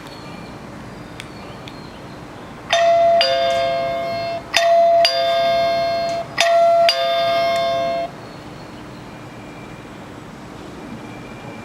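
Blusmart 2.8-inch LCD digital doorbell chiming a two-tone ding-dong three times in quick succession, each time a higher note then a lower one. The chimes stop abruptly about eight seconds in.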